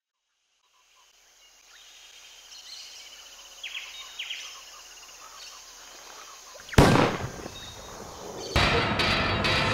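Savanna ambience fading in, with a few short rising bird chirps. About two-thirds of the way through a single loud gunshot cracks and rings out, and near the end ominous music begins with further sharp hits.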